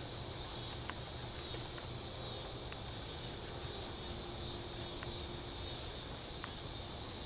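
Steady high-pitched chorus of insects, with a few faint scattered clicks from hands handling the fishing rod, reel and line.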